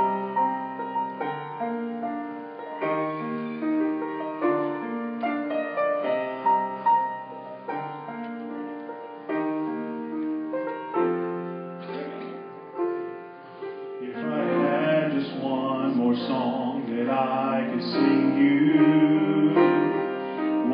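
Grand piano playing a slow introduction of stepping chord notes. About fourteen seconds in the music grows fuller and louder and a singer's voice comes in over the piano.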